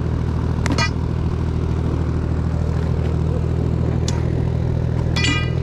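An engine idling steadily with a low, even hum, and two short high-pitched sounds, one about a second in and one near the end.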